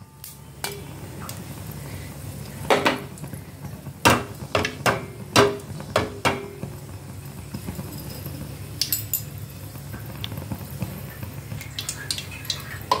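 Mustard seeds popping in hot sunflower oil in a stainless steel pot: irregular sharp pops, some with a short metallic ring, over a steady low hum. The popping shows the oil is hot enough for the tempering.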